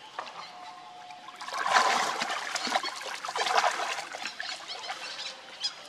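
Water splashing and sloshing in a pool as macaques move and play in it. The splashing grows suddenly louder about a second and a half in and eases off toward the end.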